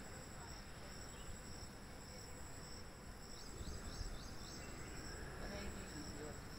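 Insects chirping in a steady high-pitched drone with a regular pulse, and a few quick falling chirps about three and a half seconds in.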